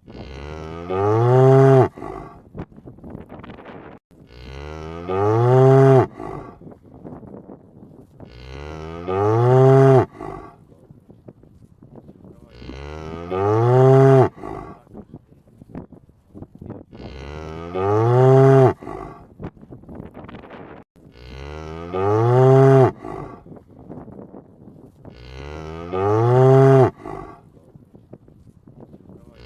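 A cow mooing: the same long moo repeats about every four seconds, seven times over. Each moo bends up and then down in pitch, swells louder toward its end and cuts off sharply.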